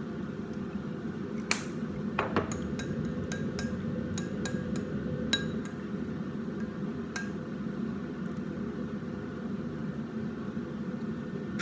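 A spoon clinks against a bowl while a sauce is being stirred: about a dozen light, ringing clinks in the first seven seconds, over a steady low hum.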